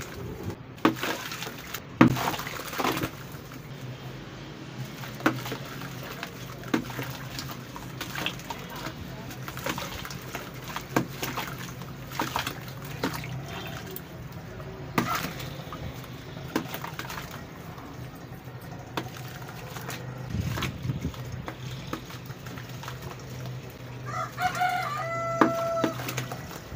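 Lumps of soaked red sand brick crumbled and squeezed by hand over a tub of muddy water: irregular crunches, drips and splashes over a steady low hum. A rooster crows once near the end.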